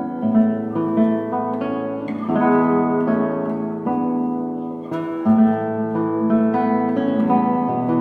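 Background music: acoustic guitar playing chords and notes at a steady pace.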